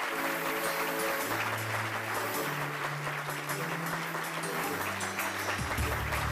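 Audience applauding over background music of sustained low notes that shift in pitch every second or so; a deeper bass note comes in near the end.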